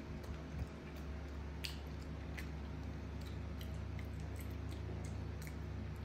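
Young macaque chewing and smacking while it eats by hand, giving scattered soft wet clicks, over a steady low hum.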